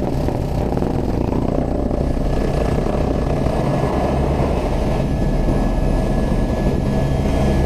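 Helicopter engine and rotor running steadily: a dense low rumble, with a faint steady whine coming in about two seconds in.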